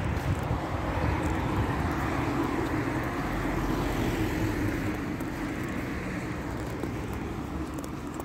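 A motor vehicle passing by: a steady rumble that swells to its loudest about halfway through, then slowly fades.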